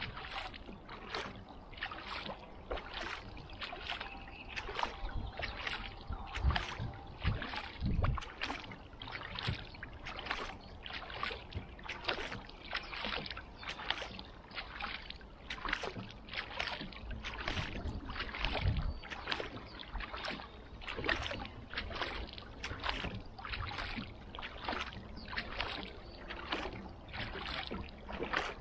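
Kayak paddle strokes dipping into calm lake water and splashing in a steady rhythm, a little more than one stroke a second, with water dripping and gurgling between strokes. A few dull low thumps come about 6, 8 and 19 seconds in.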